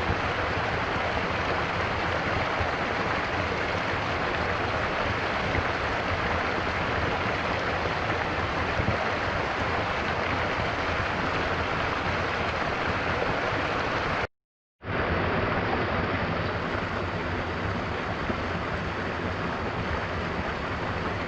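A stream flowing steadily, an even rush of water. The sound cuts out completely for about half a second about two-thirds of the way in, then carries on as before.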